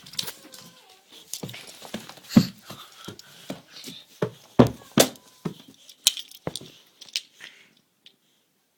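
Toy cars being handled: an irregular run of sharp clicks and knocks of small hard objects set down and knocked together, stopping near the end.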